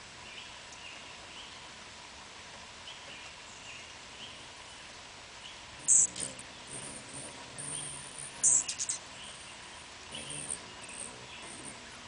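Birds calling: faint short chirps repeat every second or so, and two loud, very high-pitched squeaky chatters come about six and about eight and a half seconds in.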